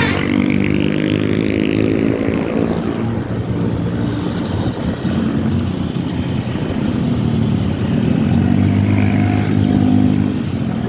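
A large bus engine running loud and close, with a steady low drone that thins out in the middle and comes back strongly near the end. Early on a higher whistling tone rises and then falls back.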